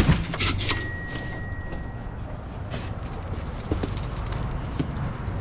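Cardboard boxes being shifted and set down on a trailer floor, with footsteps: a heavy thud at the start, then scattered knocks. A short ringing ping about a second in, over a low steady hum.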